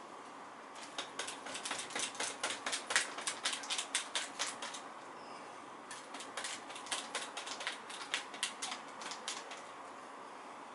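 Paint being dabbed onto a canvas board on an easel, quick sharp taps several times a second in two runs with a short pause between them.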